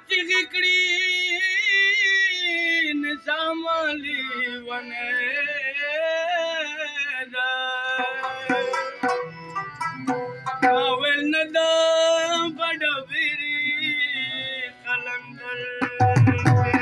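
A man singing a slow, free-flowing Pashto ghazal line over held harmonium notes. Tabla strokes come in about a second before the end.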